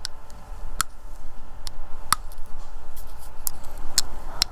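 Plastic floss pick being worked between teeth. Floss snaps through the tight contacts with a few sharp pops and clicks about a second apart. The pop is louder than normal because the teeth are very close together.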